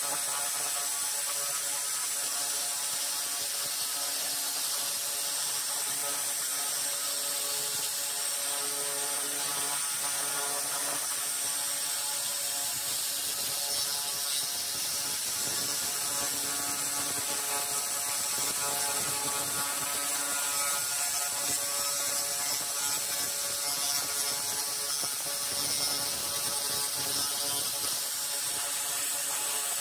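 A handheld 300 W pulsed fiber laser cleaner buzzing steadily as its beam ablates rust from metal, a constant pitched rattle with a sizzling hiss on top.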